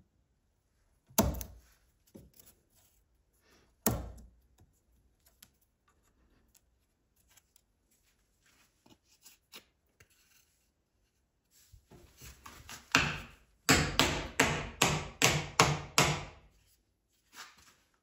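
Hand tools working a wooden hammer handle and its wedge: two sharp knocks about a second and four seconds in, then a short scrape and a quick run of about eight rasping strokes near the end.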